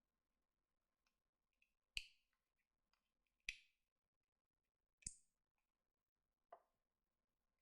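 Four short, sharp clicks about a second and a half apart in near silence, the last one softer.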